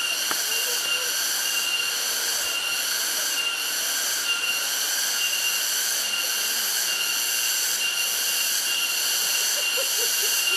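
A steady, shrill chorus of insects, typical of cicadas in tropical forest, droning without pause over a continuous rush of water from the waterfall. A thin high whine within it breaks off and resumes at regular intervals.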